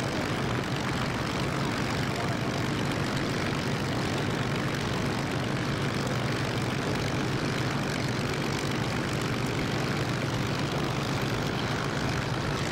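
Several Supermarine Spitfires' V12 piston engines running steadily on the ground, a dense, even engine noise with a strong low hum.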